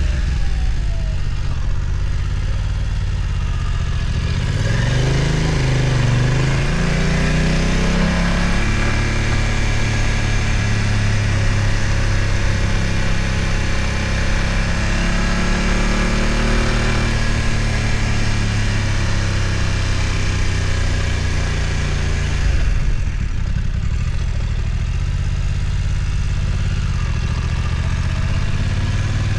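BMW F900 XR's parallel-twin engine running under way, revving up with a rising note about five to eight seconds in, then holding a steady low note and easing off a little past twenty seconds in.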